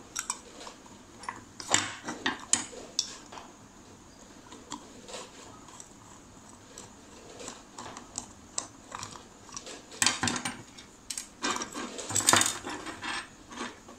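Metal clicks and clinks of a four-stroke carburetor being taken apart by hand with a screwdriver: the aluminium carb body, screws and tools knocking together. The clicks come in clusters near the start and again about ten seconds in, with quieter handling between.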